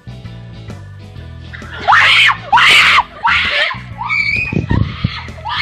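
Young women screaming in a series of loud, high-pitched shrieks starting about two seconds in, over background music.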